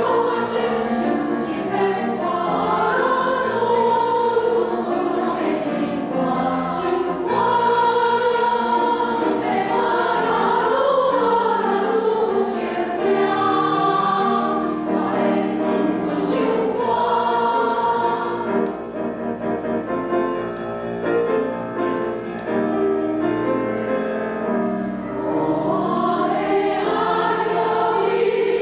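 Women's church choir singing a hymn, several sustained sung lines moving together. The singing softens in the second half and swells again near the end.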